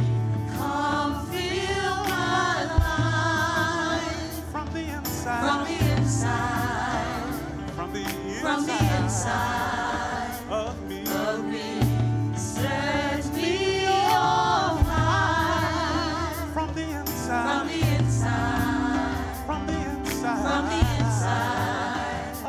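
Gospel worship song: a praise team singing, voices wavering with vibrato, over a band with bass notes that change every few seconds and drum hits.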